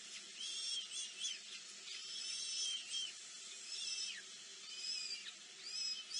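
Nestling birds chirping in the nest: high, thin calls repeated in overlapping bouts about once a second, some falling in pitch.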